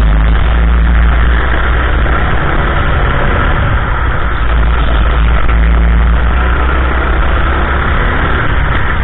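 Go-kart engine running steadily at speed, heard from a camera mounted on the kart, with a heavy low rumble underneath.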